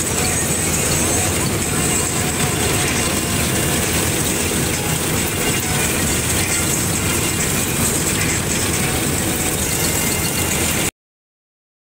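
Combine harvester running steadily while harvesting, engine and threshing machinery together as a continuous mechanical noise heard from the driver's seat. It cuts off suddenly near the end.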